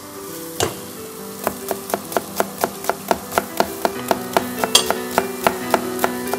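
A spoon tapping against a cooking pot as it is stirred, a steady run of clicks about four a second that begins about a second and a half in, with soft background music underneath.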